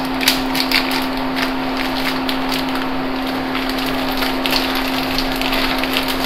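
A plastic Oreo biscuit wrapper crinkling and crackling as it is squeezed and shaken to tip crushed biscuit into a pan of noodles, with a wooden spatula scraping in the pan, over a steady low hum.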